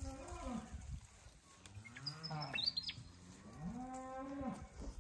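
Hereford cows mooing: a short moo at the start, another about two seconds in, and a longer one near the end.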